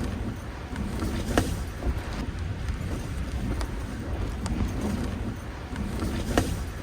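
Strong wind buffeting the microphone in a steady low rumble. A sharp knock comes about a second and a half in and another near the end, with a few lighter ticks between.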